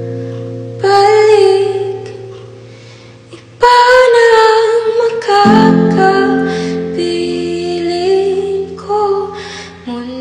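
A Tagalog ballad: a female voice sings slow, held lines over plucked guitar, dipping quieter between phrases about two to three seconds in.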